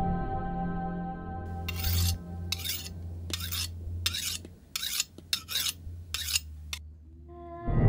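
About nine short, rough rasping strokes, irregularly spaced, like something being scraped or filed, over a low hum as the film's music fades out. Music comes back in near the end.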